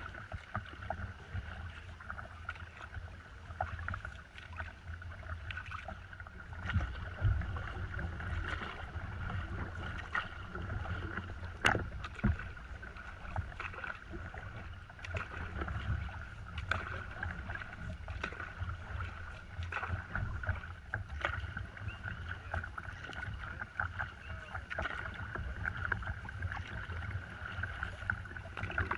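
Paddling on a river: irregular paddle strokes and small splashes, with water lapping at the nose of a paddleboard, over a low steady rumble.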